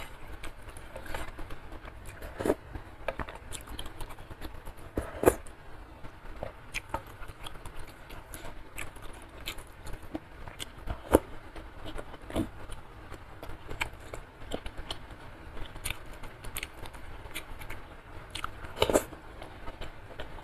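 Close-miked eating sounds: wet chewing and mouth clicks from someone eating soupy curry instant noodles with beef meatballs and chewy beef skin, with frequent sharp clicks and a few louder knocks, such as a wooden spoon against the bowl.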